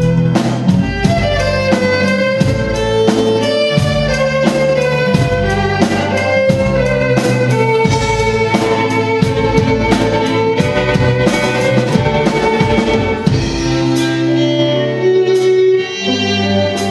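Orchestra playing a rock arrangement: a violin melody over strings and a steady drum beat. The beat drops out near the end, leaving sustained string notes.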